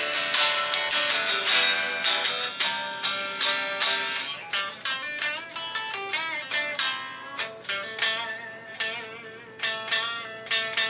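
Leo Jaymz Monsoon solid-body electric guitar played unplugged: single picked notes and short runs with a thin, acoustic-sounding tone, with a few bent, wavering notes around the middle.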